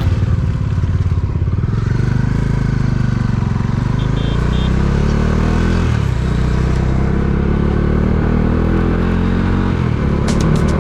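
Bajaj Dominar 400's single-cylinder engine running as the motorcycle is ridden, a steady low note with small shifts in pitch.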